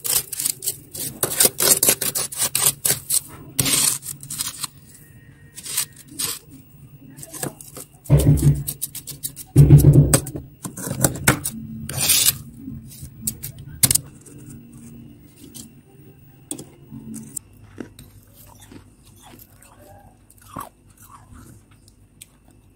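Fingers scraping and scooping powdery freezer frost: quick crunchy, scratchy strokes, thick and fast over the first few seconds and sparser later. Two louder, deeper bumps come about eight and ten seconds in.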